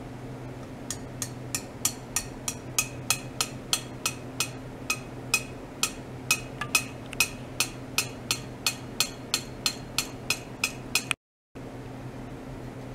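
A metal tube tapped repeatedly against clamped metal rods, about three sharp metallic taps a second, each with a short ring, stopping about eleven seconds in. A steady low electrical hum runs underneath.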